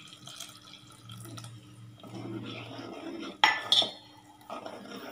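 Water poured into an aluminium pot of milky payasam, then a metal ladle stirring it and striking the pot's side with two sharp clinks about three and a half seconds in.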